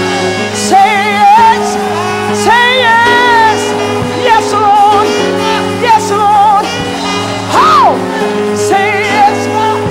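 Gospel praise music: held chords under voices singing with a strong vibrato, with percussion hits at a steady pulse. A high whoop rises and falls about three-quarters of the way through.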